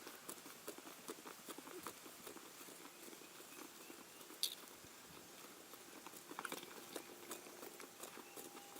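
A rope shaken in waves, giving faint, irregular taps and scuffs, with one sharper click about four and a half seconds in and a few quick taps near seven seconds.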